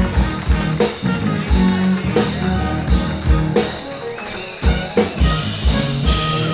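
Live band playing walk-on music: a drum kit beat with guitar.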